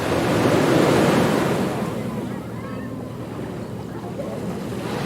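Ocean surf: a wave swells and breaks about a second in, then washes back, and the next wave begins to build near the end.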